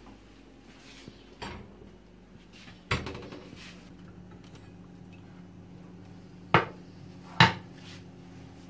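Stainless-steel pot and a foil-covered metal baking mould knocking and clinking as they are handled and set down on a gas hob and counter: a few separate knocks, the two loudest near the end. A steady low hum runs underneath.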